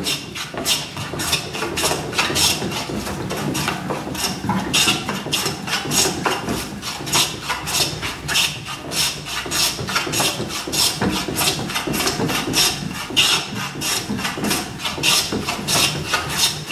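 Metal bench plane taking fine shavings off the face of a wooden board in quick, even strokes, about three a second, making overlapping cuts to flatten it.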